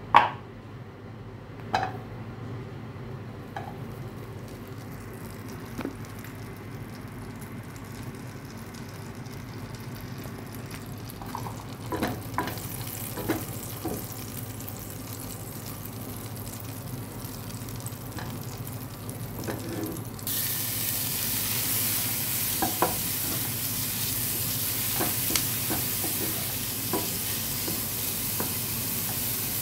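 A few knocks of a wooden spoon against a stainless steel pot while fat heats. About twenty seconds in, diced onions go into the hot fat and a loud sizzle starts suddenly, with the spoon stirring and tapping the pot through it.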